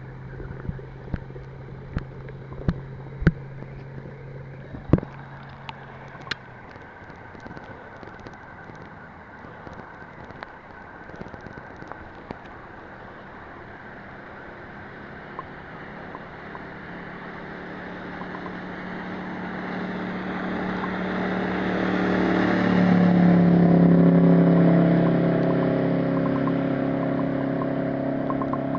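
A Malibu Sunsetter ski boat's 350 Chevy small-block V8, running through a straight-piped 4-inch stainless exhaust, makes a flyby. It is faint at first and grows steadily louder as it approaches, passes at its loudest about two-thirds of the way through with the pitch dropping, then fades a little as it moves away. A few sharp knocks come in the first several seconds.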